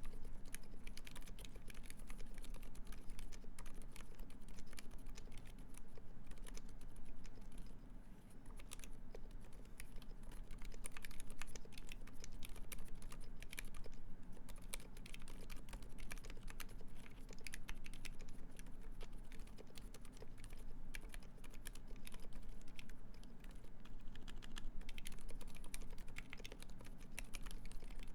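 Typing on a Uni660 split mechanical keyboard with lubed Silent Alpaca silent linear switches in a brass plate under GMK keycaps: very quiet keystrokes in quick irregular runs, thinning out briefly about eight seconds in.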